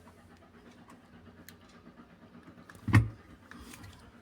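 Beko front-loading washing machine running with a faint steady low hum, and one short, loud thump about three seconds in.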